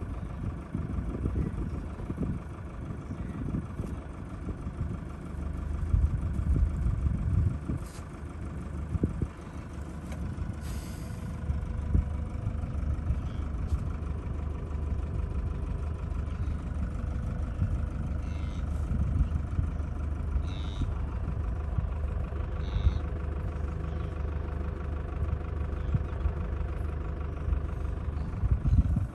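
Safari vehicle's engine running with a steady low hum and rumble.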